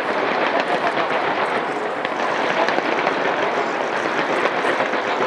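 Skyscraper fireworks display going off continuously: a dense, steady wash of crackling and many small overlapping pops and bangs, with no single burst standing out.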